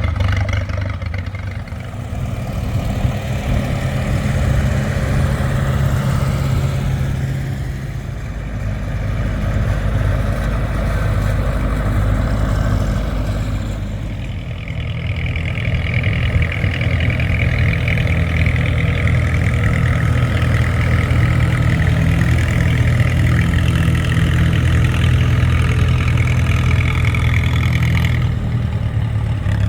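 Antique farm tractor engines running steadily, their low drone swelling and fading in level several times.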